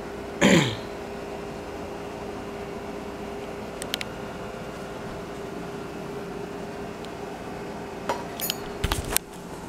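Steady room hum with a faint held tone. A short, loud falling swish comes about half a second in, a couple of light clicks follow near the middle, and near the end there is a cluster of clicks and a low thump as the handheld camera is moved.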